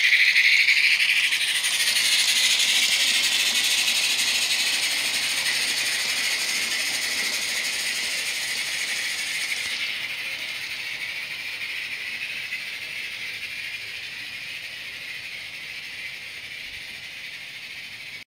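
Live-steam G-gauge Rio Grande 2-8-2 Mikado hauling a freight train: steam hiss and the rattle of wheels on the track, fading steadily as the train draws away. The high hiss thins about ten seconds in.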